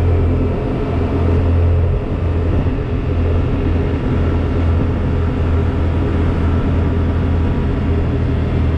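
Steady wind rush and low droning engine and road noise from a moving vehicle, with wind hitting the microphone.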